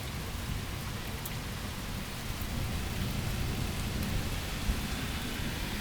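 Steady hiss of rain falling, with wind buffeting the microphone in an uneven low rumble.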